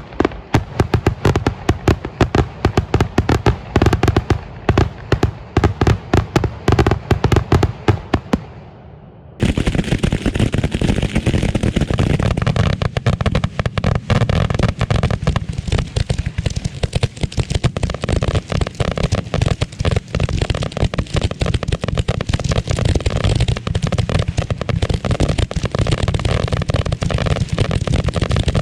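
Grand-finale barrage of aerial firework shells: a rapid, unbroken string of loud bangs. About nine seconds in, it changes abruptly to a denser, continuous rumble of overlapping bursts.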